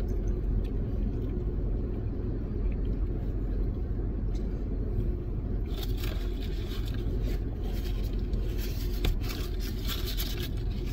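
Steady low rumble of a car idling, heard inside the cabin. From about six seconds in, irregular crisp crunching and rustling join it as sandwiches are chewed close by.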